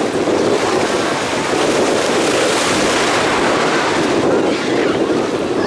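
Steady wind buffeting the microphone over the wash of small waves in shallow sea water.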